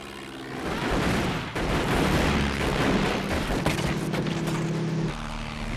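Film battle sound: a World War I biplane's steady drone over a heavy rumble, with a rapid crackle of gunfire about midway.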